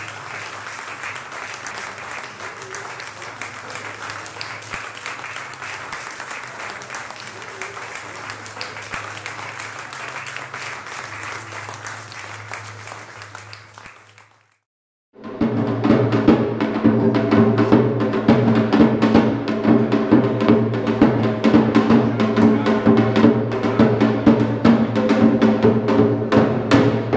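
Audience applauding, with a low hum beneath. About halfway through it cuts to a moment of silence, then loud music with drums and sustained low tones begins.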